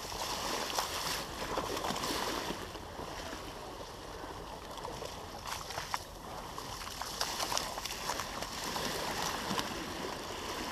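Water rushing and splashing along the hull of a moving motorboat, the bow wave swelling and easing with the chop, with scattered sharp splashes.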